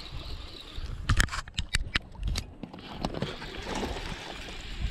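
Wind buffeting the microphone, with water lapping against the boat. About a second in, a quick run of sharp clicks and knocks is the loudest sound.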